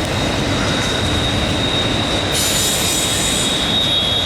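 Loaded auto rack cars at the rear of a freight train rolling past, their wheels giving a steady high squeal over the rolling noise; more, higher-pitched squealing joins about two seconds in.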